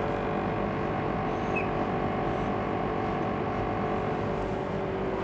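Steady background hum with a few faint steady tones and no sudden events.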